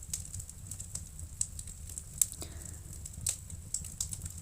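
Wood fire crackling in a fireplace: irregular sharp pops and snaps, a few a second, over a low steady rumble.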